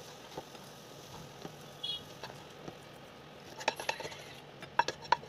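Wooden spatula scraping and tapping in a nonstick kadai as cooked poriyal is scooped out, with a few light knocks about four and five seconds in.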